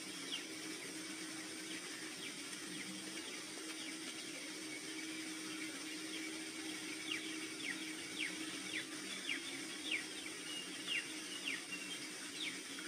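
Soft ambient nature soundtrack: a steady hiss and low hum, with small birds giving many short, falling chirps that grow more frequent in the second half.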